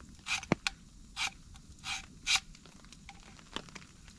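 A Morakniv knife blade drawn in four short scraping strokes, with a couple of sharp clicks between them.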